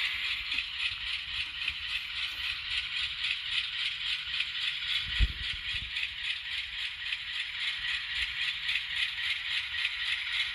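LokSound decoder in an N scale GE Dash 9-44CW model playing the diesel engine sound at low throttle through the model's tiny speaker: a steady, rattly, fast-pulsing chug with no bass. There is one low thump about halfway through.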